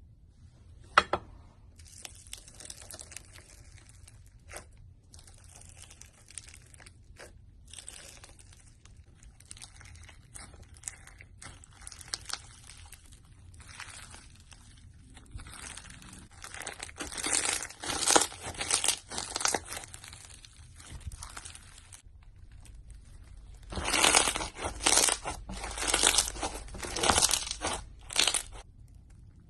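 Slime being squished and poked by hand, giving sticky crackling and clicking sounds. It grows louder and denser in two stretches, midway and near the end.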